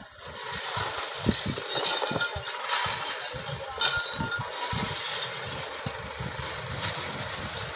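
Light trucks' engines running as they drive slowly past close by, with a few sharp scrapes and clinks of a shovel pushing broken beer bottles and cardboard across the asphalt.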